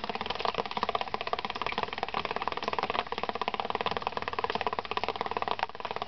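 Rainwater dripping rapidly onto the large, drummy leaves of Acanthus mollis (bear's breeches): a fast, dense pitter-patter with a rhythm, a bit sitar-ish, like rain in a downpipe.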